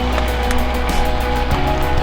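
Background music with a steady bass line and beat.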